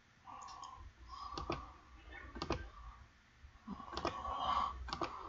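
Faint clicking at a computer: a handful of short, sharp clicks, some in quick pairs, from a mouse or keyboard.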